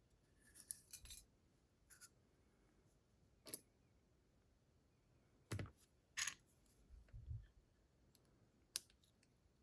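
Faint, scattered clicks and light metallic taps of small lock parts being handled as a DORMA DC500 cylinder is taken apart, about eight in all with near silence between them.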